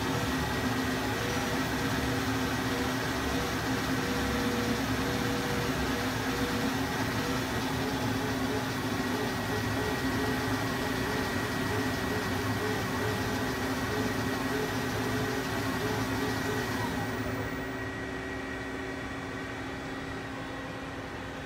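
Hurco TM6 CNC lathe spindle and chuck spinning steadily at 1,000 RPM, a steady mechanical hum with a high whine over it. About 17 seconds in, the spindle stops and the hiss falls away, leaving a quieter steady hum of the idling machine.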